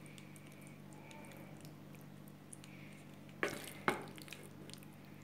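Wooden spoon scooping cooked rice and green beans from a pan onto a plate: soft scraping and small clicks, with two sharp knocks of the spoon against the dishes about half a second apart a little past halfway. A steady low hum runs underneath.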